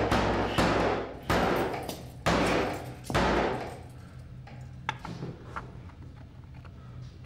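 Four heavy bangs, each ringing out in a long echo as if in a hard, tiled space, then fading into a few faint clicks over a low hum.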